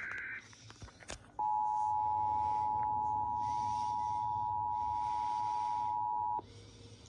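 Emergency Alert System two-tone attention signal: two steady tones sounded together for about five seconds, starting about a second and a half in, marking an EAS alert being relayed. Just before it, the shrill two-tone data burst of the alert's digital header cuts off right at the start.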